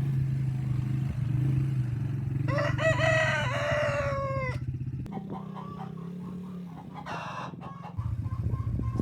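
A rooster crows once, for about two seconds starting two and a half seconds in, over the steady low hum of a quad bike's engine. Shorter clucking calls follow.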